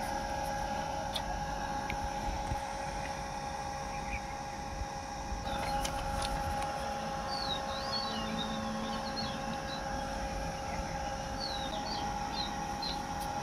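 Homemade evaporative air cooler running: a steady electric hum from its fan and water pump over a rush of blown air. Birds chirp briefly about halfway through and again near the end.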